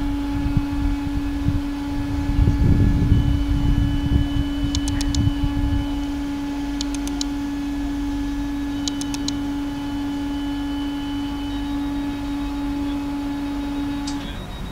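TEP70 diesel-electric locomotive's engine running with a steady drone, with heavier low rumbling in the first few seconds and a few short high clicks. The drone cuts off shortly before the end.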